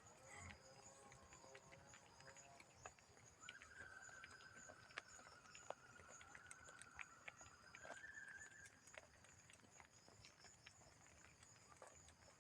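Faint, irregular clopping of cattle hooves on the road, over a steady high insect drone. A long, thin, even tone sounds from a few seconds in until past the middle.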